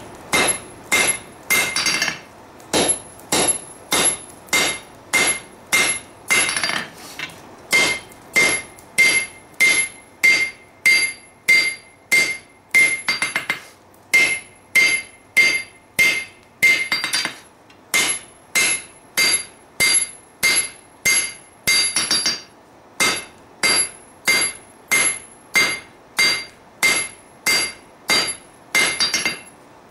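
Hand hammer striking red-hot steel on an anvil, about two blows a second with a few short pauses, each blow ringing with a clear metallic tone. A smith is drawing out the tang of a sword blade.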